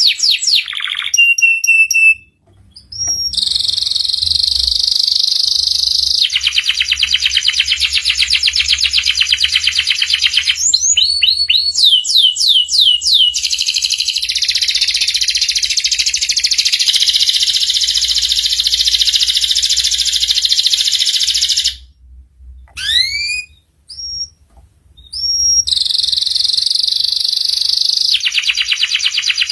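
Domestic canary singing in long, rapid, high-pitched trills, with two short breaks where a few rising whistled notes come between the runs.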